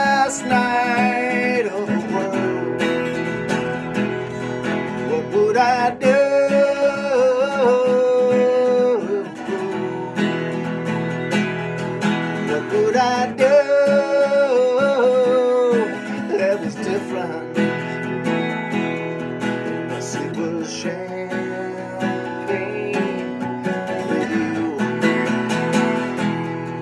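Acoustic guitar strummed steadily under a man singing, who holds long drawn-out notes three times, with stretches of guitar alone between them.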